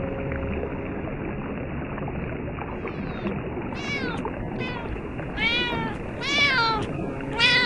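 A cat meowing, about six short meows with a rise-and-fall pitch, starting about three seconds in and getting louder toward the end, over a steady hiss.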